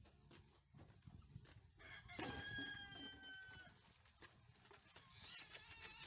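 A rooster crowing once, one faint held call of about a second and a half that drops slightly in pitch at the end, with scattered faint clicks around it.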